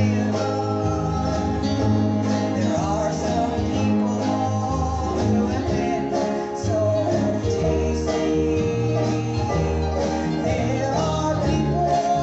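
A gospel group performing live in a country style: guitars playing over bass notes that change about once a second, with voices singing.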